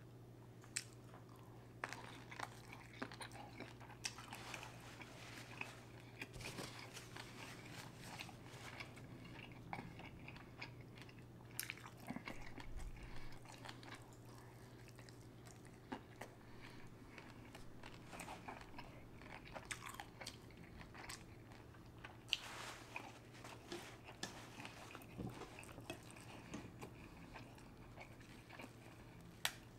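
Close-miked eating sounds from a seafood boil: quiet chewing and biting, with scattered soft clicks and a few sharper cracks.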